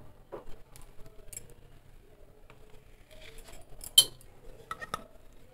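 Light clinks and knocks of tomato pieces being dropped by hand into a stainless steel mixer-grinder jar, with one sharp, loud clink about four seconds in.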